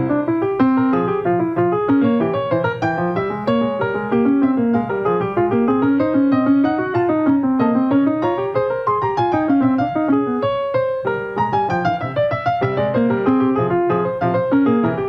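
Piano music with a continuous stream of running notes that climb and fall in waves.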